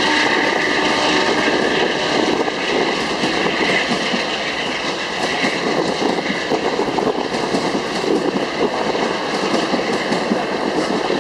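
Amtrak passenger train of Superliner bilevel cars passing close by at speed: a steady rush of wheel and rail noise with rapid clickety-clack.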